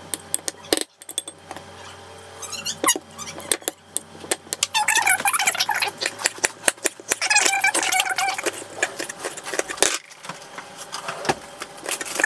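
Chef's knife slicing a red capsicum on a wooden cutting board: a run of sharp taps as the blade meets the board. Earlier, a fork mashes avocado in a ceramic bowl. A wavering high-pitched sound runs through the middle.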